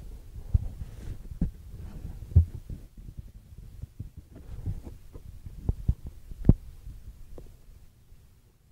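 Irregular low thumps and rubbing from a handheld phone being moved about: handling noise on its microphone. The loudest thumps come about two and a half and six and a half seconds in, and the noise fades out near the end.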